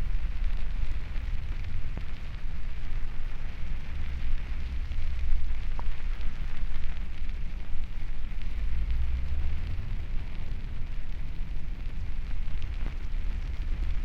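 Underwater hydrophone recording of a mountain spring: a steady low rumble with a fine hiss and faint ticks, from water and bubbles welling up through the sandy spots of the spring bed.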